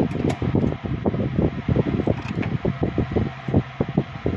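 Rushing, fluttering air noise buffeting the microphone, with a few faint clicks as insulation paper and scissors are handled.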